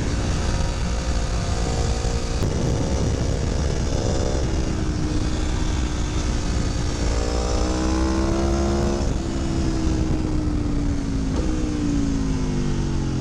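Aprilia Tuono V4 1100's V4 engine under way, its pitch climbing under acceleration, stepping down suddenly about nine seconds in at a gear change, then falling away near the end as the bike slows, over a steady low rumble.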